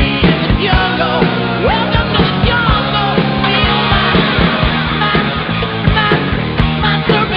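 Rock music with singing and a steady drum beat.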